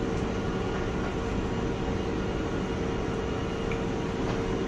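Steady machine hum and air noise from the excimer laser equipment and the room's air handling, with a constant mid-pitched tone running under it.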